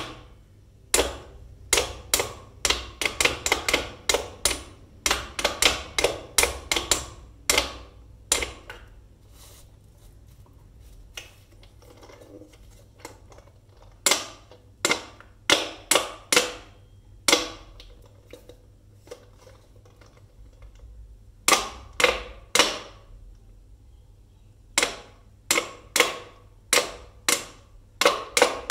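Toy mallets knocking the wooden pegs of a pound-a-peg bench toy: quick runs of sharp wooden knocks, broken by pauses of a few seconds.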